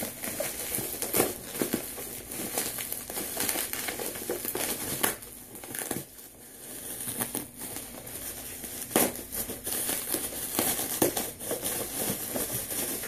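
Plastic bubble wrap crinkling and rustling as it is unwrapped by hand, with many sharp crackles and a brief lull about halfway through.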